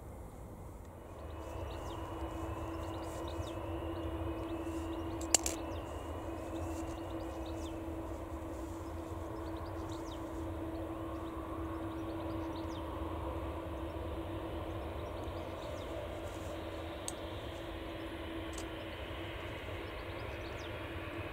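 Airbus A330 twin-engine jet airliner taxiing at low thrust: a steady engine whine over a low rumble. A single sharp click about five seconds in.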